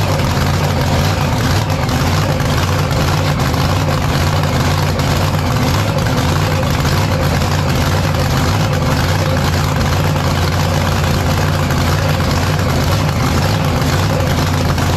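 An engine idling steadily at an even speed, without revving.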